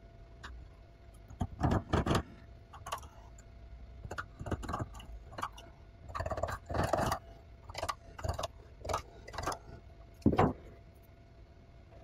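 Irregular metal knocks, clinks and scrapes from a 3D-printed metal knife blade clamped in a bench vise, as its printed metal supports are tapped and broken away with a hammer. The loudest strikes fall about 2 s, 7 s and 10 s in.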